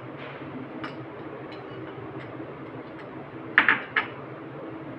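Light taps and clinks of a spoon on a stainless steel bowl as yogurt is scraped in, a few faint ones at first, then a quick cluster of louder clinks about three and a half seconds in.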